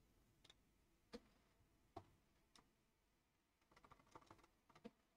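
A few faint computer keyboard key presses, scattered and about a second apart, with a short run of quicker taps near the end, against near silence.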